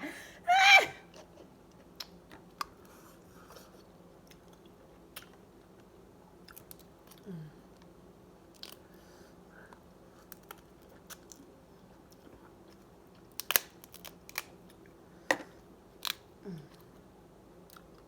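Close mouth sounds of someone eating crab and shrimp: a short loud mouth sound about half a second in, then scattered wet smacks and clicks of chewing, with a cluster of louder ones near the end. A faint steady low hum runs underneath.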